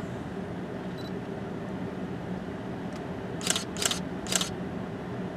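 Camera handling noise: three short, sharp clicking rustles in quick succession about three and a half seconds in, over a steady low background hum.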